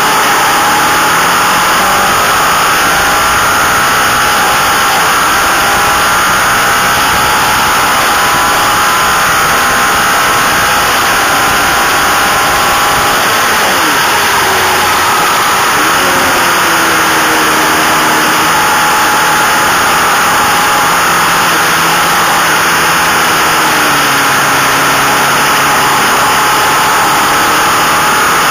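Onboard sound of a racing motorcycle at speed: the engine pulling hard under heavy wind rush, its pitch falling and rising again twice as the rider shifts and brakes for corners.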